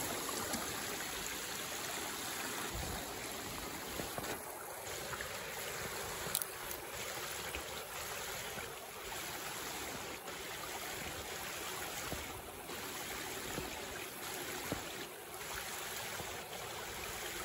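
Steady rushing of running water, with a few faint ticks.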